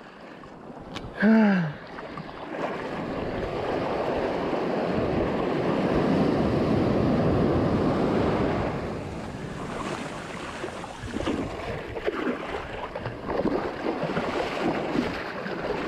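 Pacific surf: a wave breaks and its whitewater rushes up the beach, swelling over several seconds and then easing off as it drains back. A short vocal sound falling in pitch about a second in.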